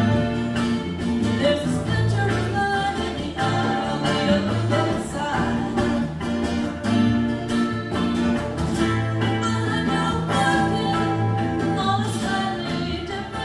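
A band playing a country-rock song: electric and acoustic guitars, bass guitar and percussion keeping a steady beat, with a voice singing over them.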